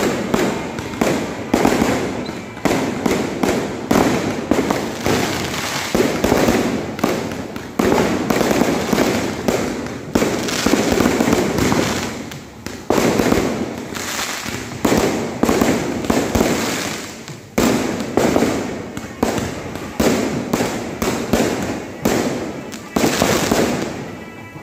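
Temple-festival kambakkettu fireworks display firing non-stop: bangs and crackling follow one another without a break, with a fresh loud burst about once a second.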